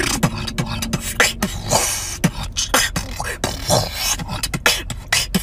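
A woman beatboxing: a quick, irregular string of mouth-made kicks, snares and clicks with no words, and a longer hiss about two seconds in.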